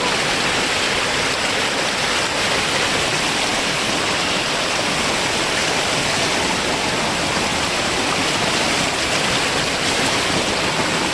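Waterfall: a steady, loud rush of falling and splashing water.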